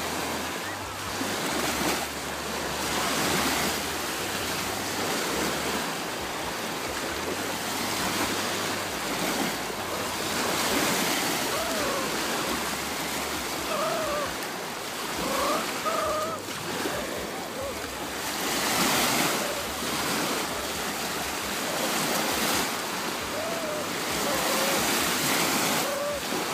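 Small waves lapping and breaking in shallow water, the wash swelling and fading every few seconds, with wind buffeting the microphone.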